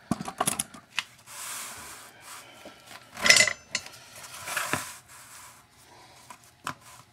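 Handling noise on a workbench: scattered light clicks and knocks of small hard objects, with stretches of rubbing and rustling and a louder scrape about three seconds in.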